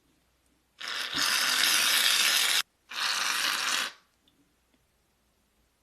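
Slime being stretched and pressed: two bursts of crackly, tearing noise, the first about two seconds long and the second about one second, with faint small clicks afterwards.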